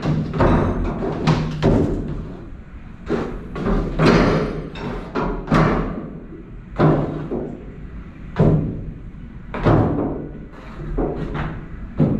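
Irregular hollow thumps and knocks, one every half second to second and a half, each ringing on in the enclosed tunnel: the ride boat bumping against the walls of its water channel.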